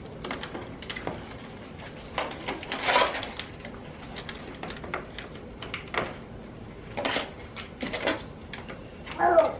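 Snack packs being handled and packed into a small container: irregular short knocks, clatters and rustles, a little louder around three seconds in.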